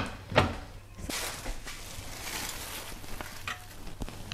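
A short knock near the start, then a clear plastic bag crinkling and rustling as marinated turkey legs are handled in it.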